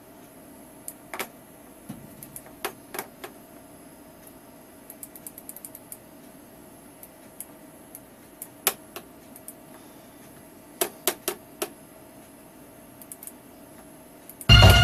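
Irregular light clicks from operating a computer's mouse and keys, some in quick little runs, over a faint steady hum. Just before the end, dance music from the vinyl record being de-clicked starts suddenly and loudly as it is played back.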